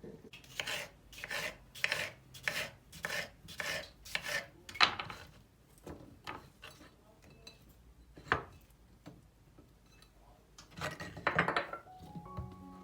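Rhythmic scraping strokes, about two a second, like something being rubbed or rasped by hand. Then a single sharp knock, and a short quick flurry of scraping near the end.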